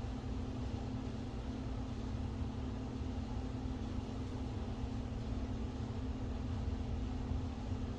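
Steady background hum with a low rumble and a constant tone, unchanging throughout, typical of a fan or air-handling unit running in the room.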